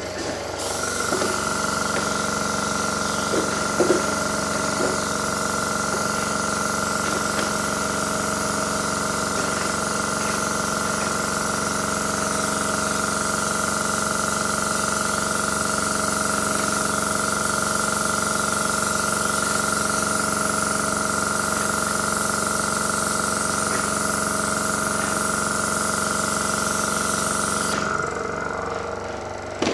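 A motor running at one steady speed with a constant whine over a hiss, switched on about half a second in and cutting off abruptly near the end, with a few light knocks in the first seconds.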